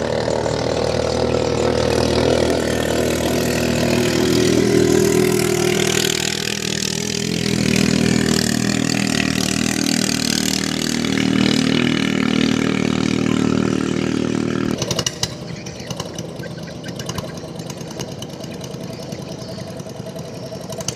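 A small single-cylinder boat engine running hard close by, its pitch rising and falling with the throttle. About fifteen seconds in the sound cuts abruptly to a fainter engine hum.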